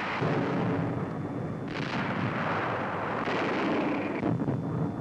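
Heavy gun fire from tank destroyers: three blasts about a second and a half apart, each trailing into a long rumbling rush.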